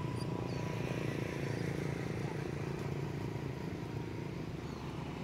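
Steady low rumble of vehicle engine noise, unbroken and fading slightly near the end.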